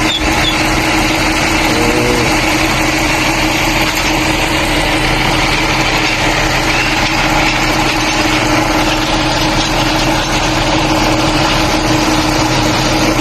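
Dodge Charger engine idling steadily, with a constant whine running through it.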